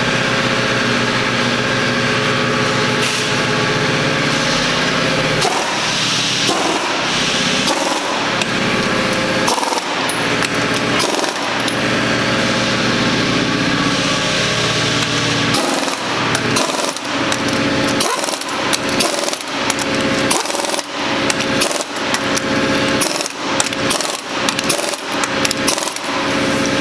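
Pneumatic impact wrench on a car wheel's lug nuts, hammering in many short bursts through the second half.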